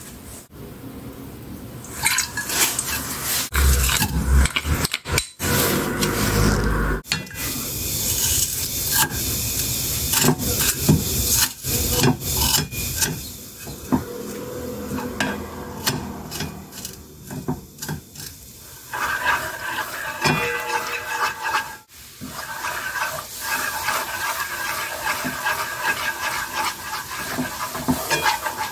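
Cooking in a wok: seasonings are added and a wooden spatula stirs and scrapes through soy sauce, with knocks and clatter against the pan. In the second half the sauce heats to a steady bubbling sizzle.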